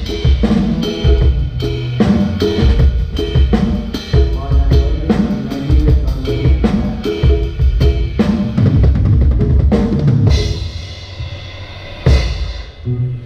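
Live band playing with the drum kit to the fore: kick, snare and cymbal hits in a steady rhythm over low pitched notes. About ten seconds in the hits thin out under a ringing cymbal wash, then the band comes back in near the end.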